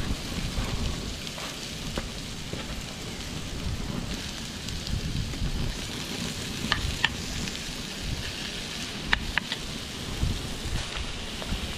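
Lamb pieces sizzling and frying with onions in a pan on a portable gas-canister camping stove. A metal spoon stirs them, clinking sharply against the pan twice around the middle and twice more about three-quarters in, over a low rumble.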